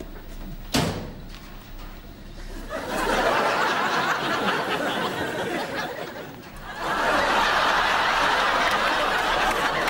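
Studio audience laughing in two long waves, the second starting about seven seconds in after a short lull. A single sharp knock about a second in.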